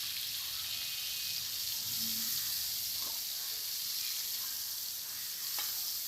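Boiled soya chunks frying in hot oil in a kadai: a steady sizzle, with a couple of faint clicks.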